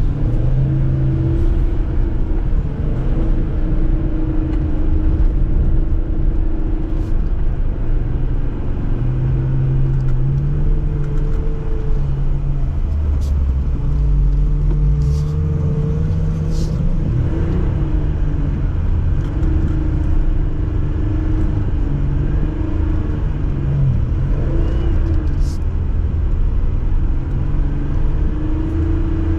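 Jeep engine running under varying throttle while driving offroad, its pitch rising and falling every few seconds, with a few brief sharp clicks.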